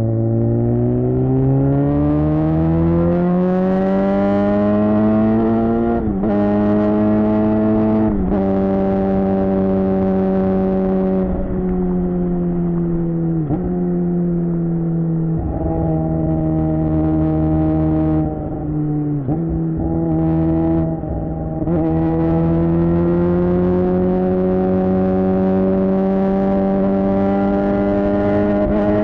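Suzuki GSX-R600 K7's inline-four engine through a Yoshimura R11 exhaust, ridden hard. It rises in pitch and drops sharply at each upshift, three times in the first half. It eases off for a few seconds past the middle, then pulls steadily higher again.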